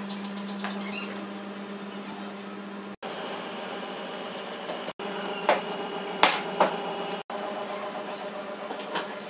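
A steady low hum with a few short, sharp clicks. The hum cuts out completely three times, each time for a moment.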